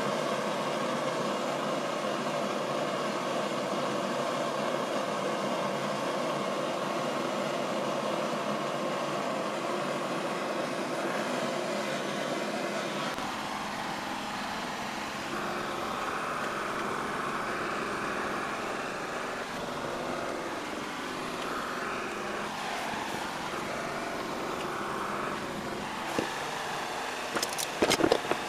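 Handheld propane torch burning with a steady hiss while it melts an HDPE filler strip into a seam. A few sharp clicks near the end as a metal clamp is handled.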